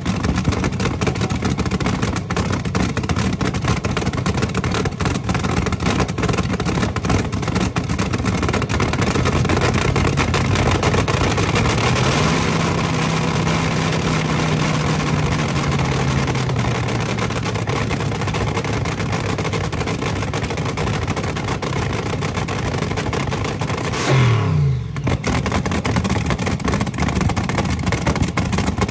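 Front-engine dragster's V8 running with all eight cylinders firing through open zoomie headers, a loud, choppy idle. About twelve seconds in the revs rise, hold for a few seconds and ease back down, and near the end comes a short blip of the throttle that drops away quickly.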